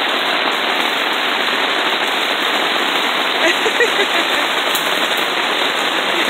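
Heavy pouring rain falling on a tarp overhead, a steady dense hiss.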